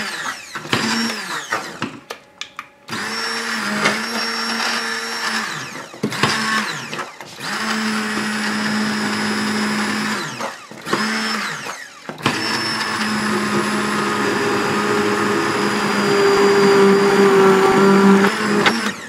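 Stick blender pureeing a strawberry-rhubarb fruit mixture in a steel pot, switched on and off several times in runs of a few seconds, its motor pitch falling each time it is let go. The longest run, about six seconds, comes near the end.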